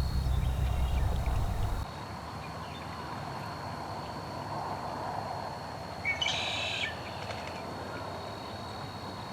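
Riverside ambience: a low rumble stops abruptly about two seconds in, a thin steady high whine runs underneath, and a short bird call sounds about six seconds in.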